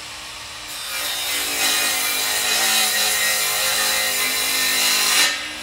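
DeWalt miter saw cutting through a wooden board: the motor is already running, and the blade bites into the wood about a second in, making a loud, steady cutting noise with a high whine. The cut ends abruptly shortly before the end.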